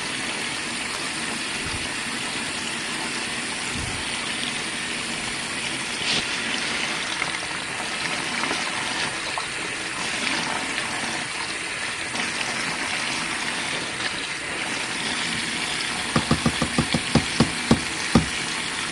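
RV washing machine tub filling with water for its final rinse, a steady rush of water. A quick run of sharp clicks comes near the end.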